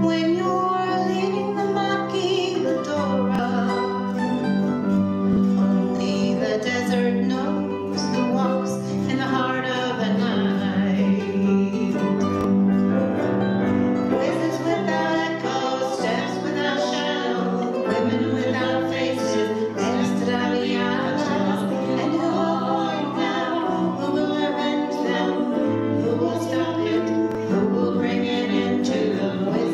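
Autoharp and acoustic guitars playing together, strummed and plucked chords in an ongoing acoustic folk tune.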